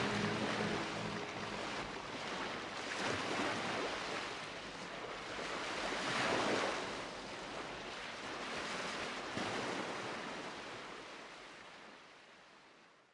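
Ocean waves washing in, swelling and ebbing every few seconds, then fading out near the end.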